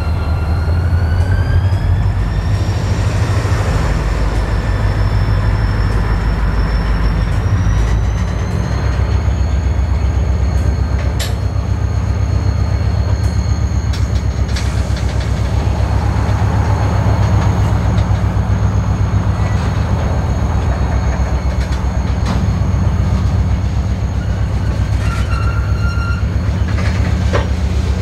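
Freight cars of a CSX local train, tank cars and a coil car, rolling past close by with a heavy, steady rumble of wheels on rail. Over it runs a thin, high-pitched wheel squeal that steps up in pitch twice. A few sharp clicks from the wheels and couplers come in the second half.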